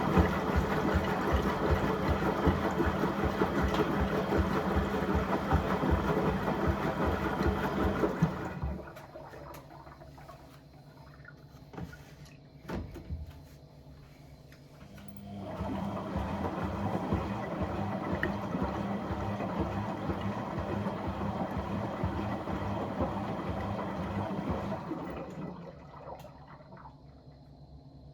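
A washing appliance running its wash cycle: a motor hum with water churning and swishing for about eight seconds, stopping for about seven seconds with a few light knocks, then running again for about ten seconds before dying away.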